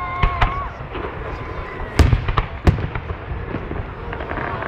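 Aerial fireworks bursting over a steady low rumble: a run of sharp bangs, the loudest about two seconds in with another just after.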